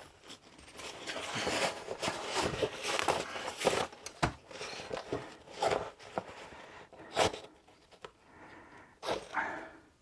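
Backpack fabric and a packed tarp rustling and rubbing as hands press and adjust them under elastic bungee cord, in irregular handling noises. There are a couple of short, sharp knocks, about four seconds in and again about seven seconds in.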